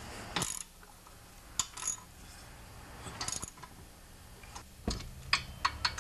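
Socket ratchet clicking and metal tools clinking in short, scattered bursts while cylinder head bolts are tightened.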